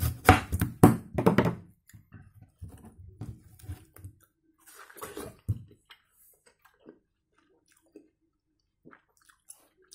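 Ripe, juicy watermelon being broken apart by hand: wet crunching and cracking of the flesh and rind, loudest in the first second and a half, with smaller wet clicks after and another short burst about five seconds in.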